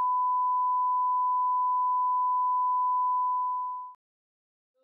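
Bars-and-tone test signal: a steady single-pitch sine-wave reference tone that cuts off suddenly about four seconds in.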